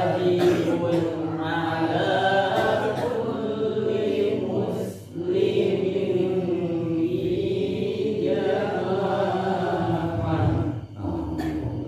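A man chanting Arabic in melodic Qur'an-recitation (tajwid) style, drawing out long held, gliding notes. He pauses for breath about five seconds in and again near the end.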